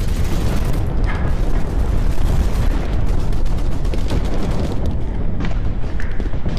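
Loud, steady low rumble of wind and rubbing noise on a head-mounted action camera's microphone, with scattered sharp clicks.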